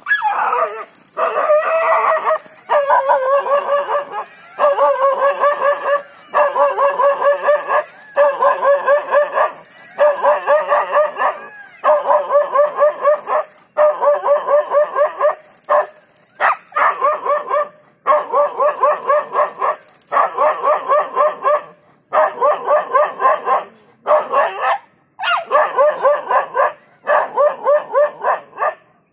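A dog barking nonstop at a leopard in rapid volleys: several quick barks in each burst of about a second, then a short pause, over and over. It is a defensive bark that drives the leopard off.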